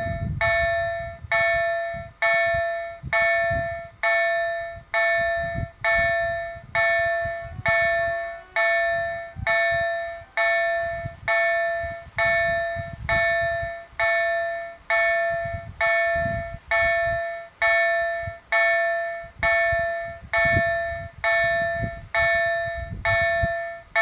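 Level crossing warning bell ringing in a steady rhythm, one clear strike a little more than once a second, each ringing out before the next. It signals that a train is approaching the crossing.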